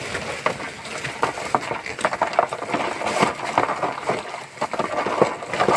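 Land crabs tipped from a cloth sack into a plastic basin: the sack rustles and the shells and legs make a dense run of clicks and scrapes on the plastic.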